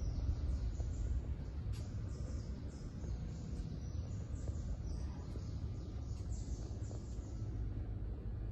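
Outdoor ambience: many short, high bird chirps over a steady low rumble.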